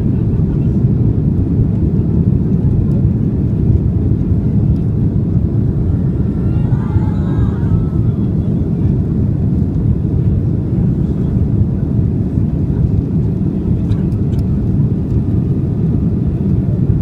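Airplane engine noise during takeoff: a loud, steady low rumble that neither rises nor falls.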